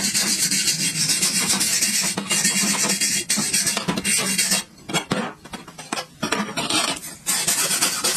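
Harsh rasping and scraping on metal, as in rust being worked off the old water pump motor's parts. It breaks into short, separate strokes for a few seconds past the middle, then runs on steadily again.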